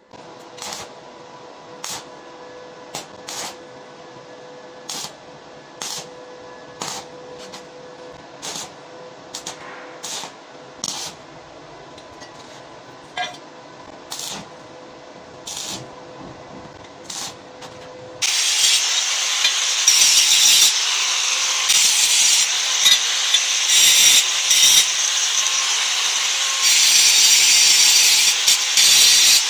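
Sharp crackles about once a second over a steady hum as the steel bars of a footrest are tack-welded with a stick welding electrode. About 18 seconds in, an angle grinder with a flap disc starts grinding the steel weld, much louder and continuous.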